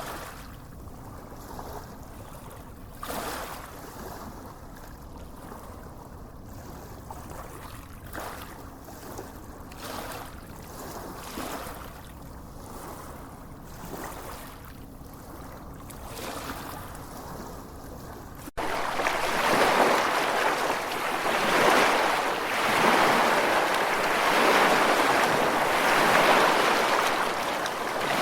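Small waves lapping softly on a sandy beach, a gentle wash every second or two. About two-thirds of the way through it cuts suddenly to a much louder, steady rush of surf.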